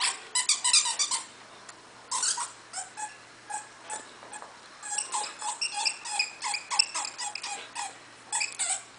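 Squeaker inside a plush dog toy squeaking again and again as an Alaskan Malamute chews it, in quick runs of short squeaks, several a second, with a pause about a second in and a sparser stretch before it picks up again.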